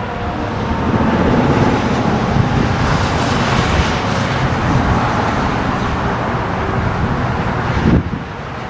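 Road traffic noise: vehicles going by. It swells about a second in and drops off abruptly near the end.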